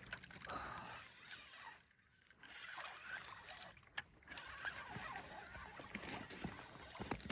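Faint water sloshing and splashing, with a few sharp knocks and clicks, the clearest about four seconds in, while a hooked fish is being played from the water.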